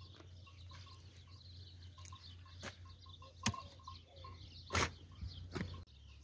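A long-handled spade is driven into garden soil: about four dull strikes in the second half as the soil is dug over. Faint bird chirps sound in the background.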